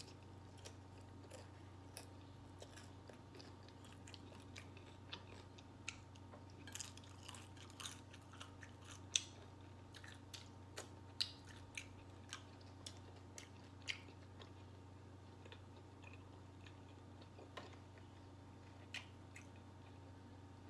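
Close-up chewing of a steak taco in a ranch taco shell: irregular small crunches and wet clicks of the mouth, a few louder than the rest, with no steady rhythm.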